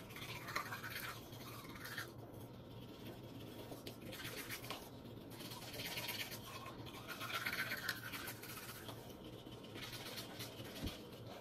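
Toothbrush scrubbing teeth, a scratchy brushing sound in short bouts with brief pauses between them.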